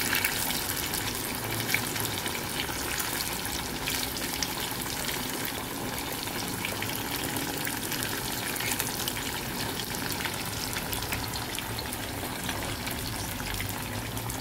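Tofu deep-frying in hot oil in a pan: a steady sizzle with dense fine crackling pops.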